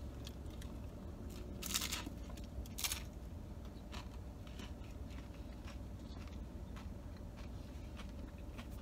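Biting into a hard corn-shell taco: two loud crunches of the shell breaking, about two and three seconds in, then quiet chewing.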